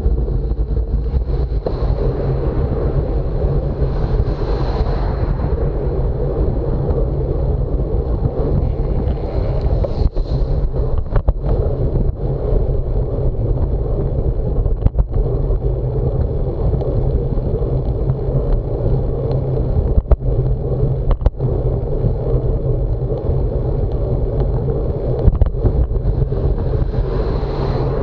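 Wind rushing over the microphone of a moving camera, over a steady low road rumble. There are a few brief swells of rushing noise and scattered sharp knocks.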